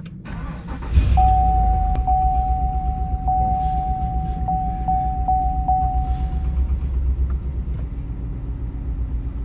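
Cadillac Escalade's 6.2-litre V8 starting by push-button on its first start after an oil change: it turns over briefly, catches about a second in, then settles into a steady idle rumble. A steady high tone sounds over it for about five seconds.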